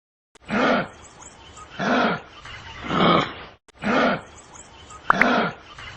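A large animal's deep, rough calls, five of them at about one a second, each short and swelling.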